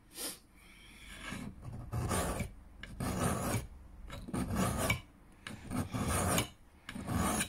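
Second-cut hand file rasping across the steel bit of a Hultafors HY20 felling axe, about six or seven slow strokes, roughly one a second, reprofiling the edge. The going is hard on the axe's hard steel.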